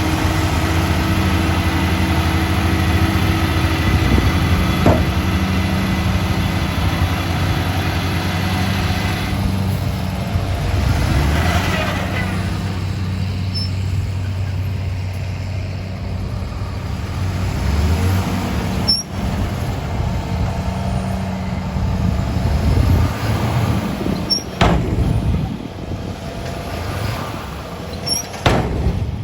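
Heavy diesel engines of a dump truck and bulldozer running. The sound holds steady at first, turns rougher and more changeable about halfway through, and has a few sharp knocks near the end.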